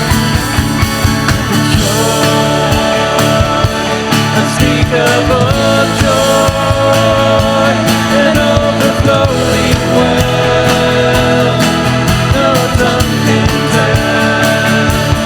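Loud rock-style worship music from a band, with a steady drum beat under held melodic lines.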